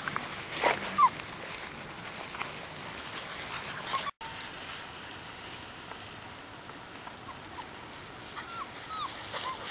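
Seven-week-old English Springer Spaniel puppies giving short, high whimpers and yips, one or two about a second in and a cluster near the end, over rustling and steps through undergrowth.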